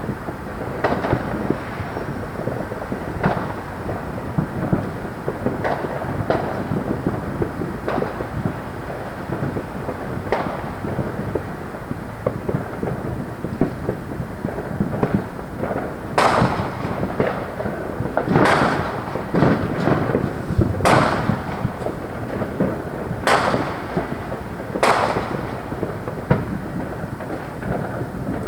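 Fireworks going off, a constant rumble of distant booms with many sharp bangs and cracks among them, which grow louder and come more often about halfway through.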